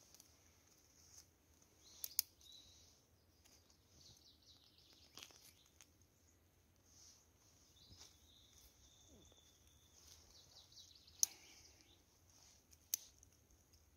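Faint rustling and light crackling of newspaper kindling and dry twigs as a small fire is lit and fed, with a few sharp clicks or snaps about two seconds in and twice near the end. Birds chirp faintly in the background.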